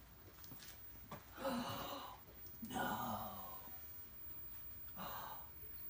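A man sighing aloud twice, the second sigh falling in pitch, with a shorter breath about five seconds in.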